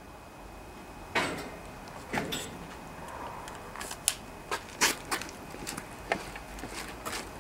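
A person moving about and handling a toy pistol: two short swishes about one and two seconds in, then scattered light clicks and knocks of footsteps and handling from about four seconds on.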